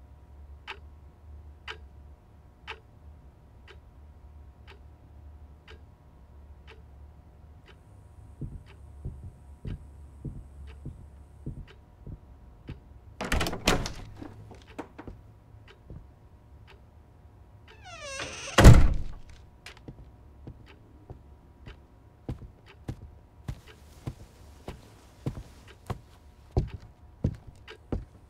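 Wall clock ticking about once a second over a faint low hum, with two loud thunks: one about halfway through and a louder one about two-thirds in that carries a falling squeak. After that come irregular knocks and clicks.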